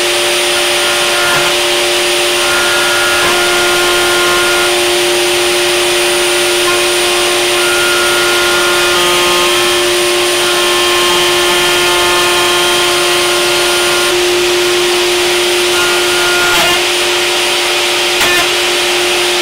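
Table-mounted router running steadily under load, its motor giving a loud whine, while an oak workpiece is fed against a template-guided flush-trim bit, with a vacuum cleaner running alongside. A couple of sharp knocks come near the end as the bit snatches at the oak.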